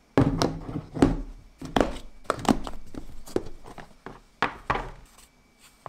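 A small ceramic bowl and a plastic food container set down and shifted on a wooden tabletop: a run of sharp knocks and thunks that thins out near the end.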